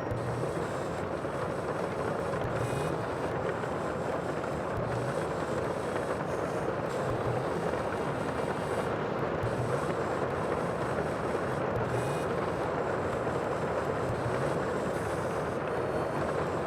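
Steady, unbroken roar of the sea, with no separate waves standing out.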